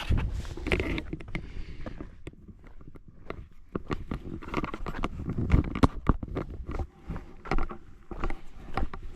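Irregular rustling, cracks and knocks of someone moving about in dry brush and twigs.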